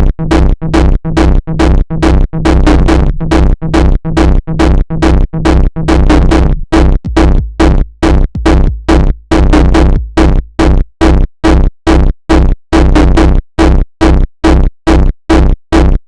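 Loud electronic jumpstyle beat: a heavy drum-machine kick with synth, chopped into sharp on-off pulses about two to three times a second.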